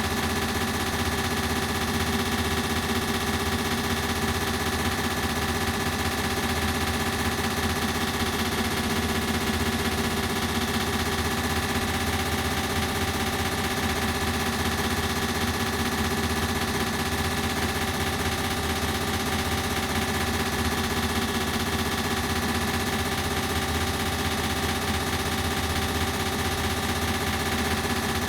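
Ceiling fan running steadily, its sound processed with echo effects: a constant whir with several held hum tones and a fine, rapid fluttering texture.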